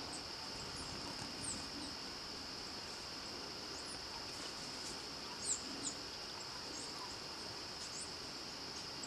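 A steady high insect drone with a few brief, high bird chirps scattered through it, the plainest about five and a half seconds in.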